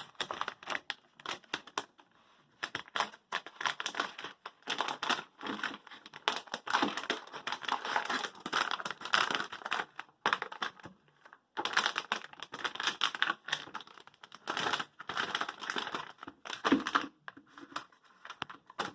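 An HDMI cable's retail package being opened by hand: irregular crinkling, tearing and clicking of the packaging, with two brief pauses.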